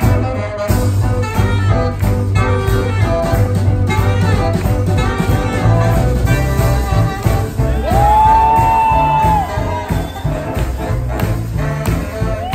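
Live swing band playing, with double bass, drums and horns. About eight seconds in, one long note is scooped up to, held and let fall.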